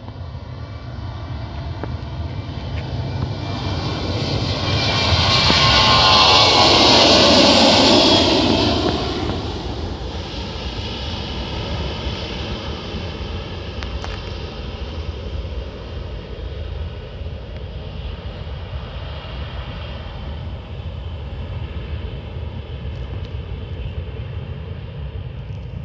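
Boeing 737-800's twin CFM56-7B turbofans at takeoff thrust. The sound swells as the airliner climbs out and passes close by, loudest about six to eight seconds in with a whine sliding down in pitch. It then settles to a steady, lower roar as the plane climbs away.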